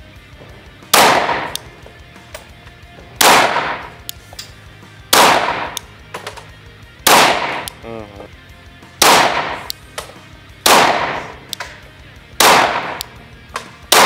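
Single shots from a Glock pistol, slow aimed fire, about seven in all, roughly two seconds apart. Each shot is loud and followed by a short echoing tail in the indoor range.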